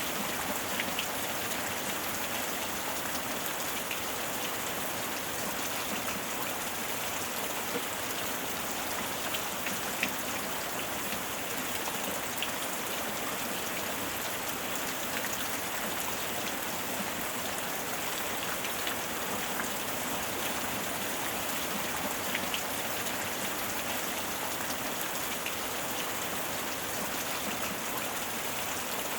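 Steady heavy rain falling, an even hiss with the patter of individual drops hitting a surface.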